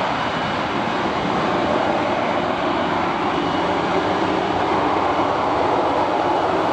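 Lockheed F-35B's F135 turbofan engine running with a steady jet rush after its vertical landing.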